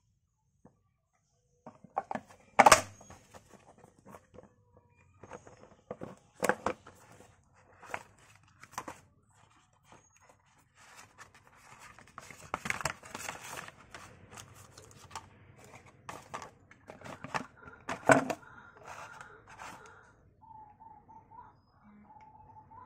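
Cardboard smartphone box and its inner trays being handled and unpacked: sharp knocks and clicks as parts are lifted out and set down, with rustling of cardboard and packing in between. Near the end a faint thin tone sounds twice.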